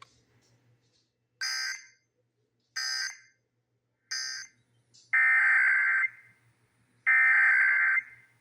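Emergency Alert System SAME digital data bursts, a buzzy warbling screech: three short end-of-message bursts about a second and a half apart, then two longer, louder header bursts of about a second each, signalling the start of the next station's test alert.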